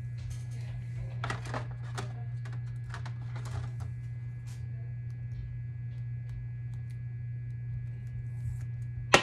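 Soft, scattered rustles and scrapes of a baseball card being slid into a clear plastic sleeve and top loader, over a steady low hum. A sharp click comes right at the end.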